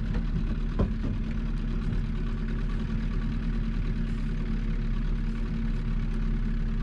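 Fishing boat's outboard motor running steadily at slow trolling speed, a low even drone, with a single knock about a second in.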